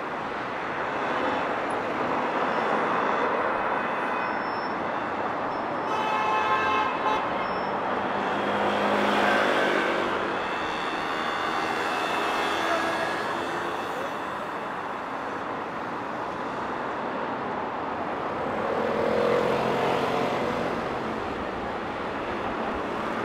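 Street traffic, with cars and other motor vehicles passing and the noise swelling as each one goes by. A brief high tone sounds about six seconds in.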